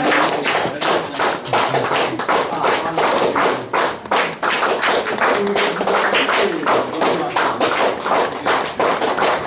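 A group of people clapping their hands, a dense, continuous patter of claps.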